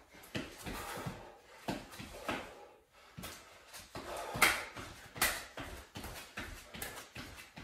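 Movement noises of a person exercising on the floor: irregular soft thumps and shuffles, with breathing between them. Two sharper knocks come about halfway through.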